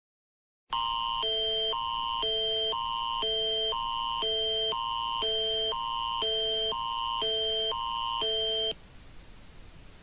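Canadian Alerting Attention Signal of the Alert Ready emergency alert system: two high chords alternating every half second for about eight seconds, starting just under a second in and cutting off sharply, then faint hiss. It is the attention tone that opens an emergency alert broadcast.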